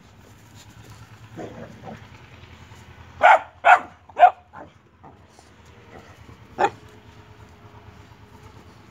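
Boxer dog barking: three quick barks, then one more bark a couple of seconds later.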